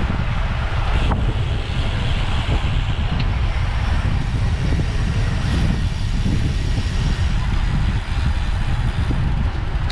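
Wind buffeting the microphone as a heavy, steady rumble while moving along a road, with a hiss of road noise above it.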